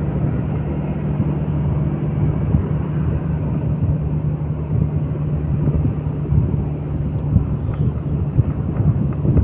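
Vehicle engine running at a steady speed with a constant low hum, under the rush of wind buffeting the microphone while moving along the road.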